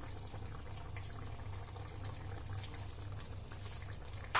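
Faint, steady simmer of chicken-and-egg biryani gravy in a pan on a low flame, over a low steady hum.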